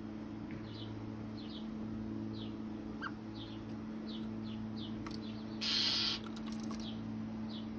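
A small bird giving short, thin, downward-sliding chirps, about two a second, over a steady low hum. About five and a half seconds in, a brief loud rushing noise breaks in for half a second.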